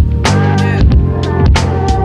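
Background music: sustained chords over regular percussive hits.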